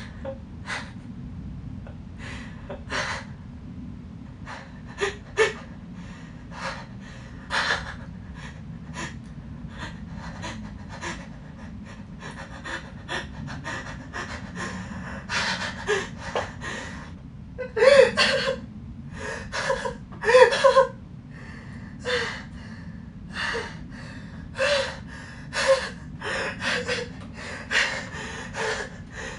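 A young man laughing without words: short breathy puffs of laughter, sparse at first and growing more frequent, with the loudest, voiced bursts a little past halfway.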